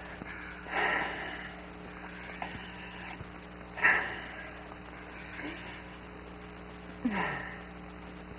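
Three short, labored gasping breaths about three seconds apart, from a man struggling to breathe, over a steady electrical hum.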